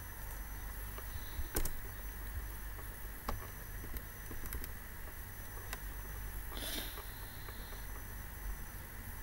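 Steady low hum and hiss of a desk microphone, with a few scattered sharp clicks of a computer mouse and keyboard. A short breathy hiss comes about seven seconds in.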